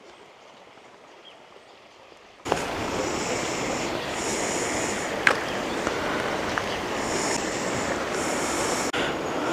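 River water rushing steadily, starting abruptly and loud about two and a half seconds in after a faint, quiet stretch. A high buzz comes and goes over it, with one sharp click midway.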